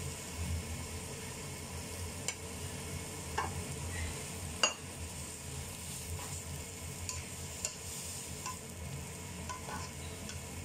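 Noodles and vegetables sizzling in a hot wok as they are stirred and tossed with a slotted spatula. Scattered sharp taps and scrapes of the spatula against the pan come through the steady sizzle, the loudest about four and a half seconds in.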